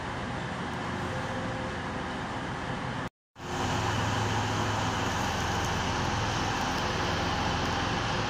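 Steady mechanical rumble and low hum of a railway station, broken by a short silence about three seconds in, after which the hum comes back louder.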